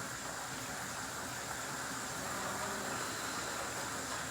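Steady hiss of background noise, even throughout, with no distinct events.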